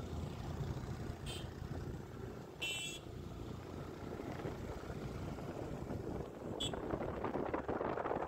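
Steady engine and road noise of a taxi being driven, with three short high-pitched beeps, the middle one the longest.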